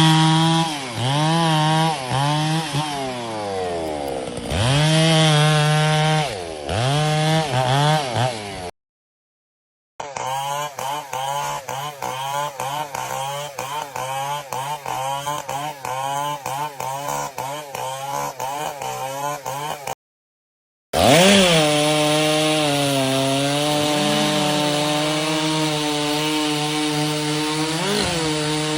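Chainsaw sound effects in three short runs with brief silences between: first the saw revving up and down several times, then a choppy, stuttering run, then a steady high run after a quick rev.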